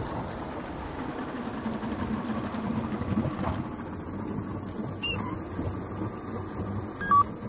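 Hydrodyne ski boat's engine running steadily at low speed. A brief two-note beep near the end.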